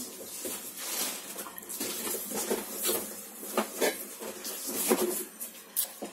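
Handling noise from gloved hands moving a heavy glass perfume bottle and its weighty cap: rubbing, light clicks and several hard clinks and knocks, the sharpest about five seconds in.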